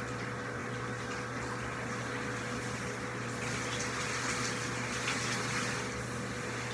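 Water running steadily from a bathtub's handheld shower sprayer as a dog is washed, with a steady hum underneath.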